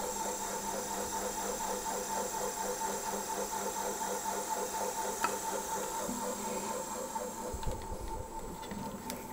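Drill press running slowly at 250 RPM while a brass tube in its chuck bores through a rubber plug: a steady motor hum with a fast, even pulse.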